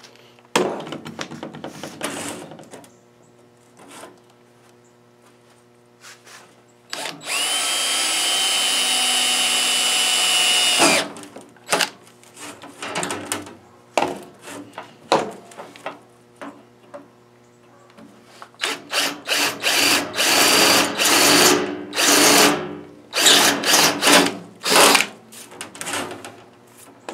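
Power drill boring 1/4 inch holes in steel plate with a stubby bit. There is one steady run of about four seconds with a high whine, then a string of short, on-off bursts near the end.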